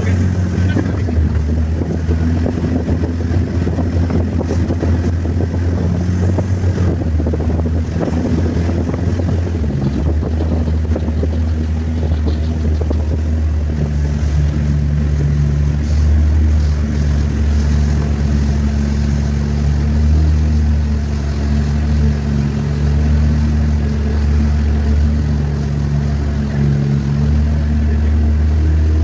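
Motorboat engine running steadily under way, a low hum with a few overtones, over the hiss of rushing water and wind.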